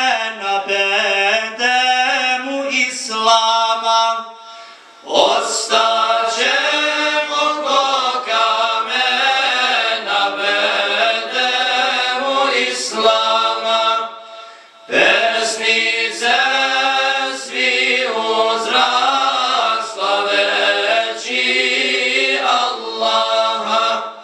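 Men's choir singing an ilahija, a Bosnian Islamic devotional hymn, a cappella, breaking off briefly twice, about five and fifteen seconds in.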